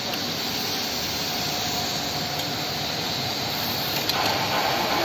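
Steady whir and hiss of running machinery in a workshop, with one sharp knock about four seconds in as the foil roll is handled.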